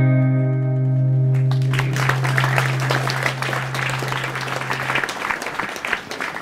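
Audience applauding, starting about one and a half seconds in and thinning out near the end, over the song's last chord ringing out until about five seconds in.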